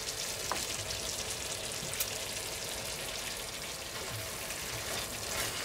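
Food frying in a pan: a steady sizzle with a couple of small crackles.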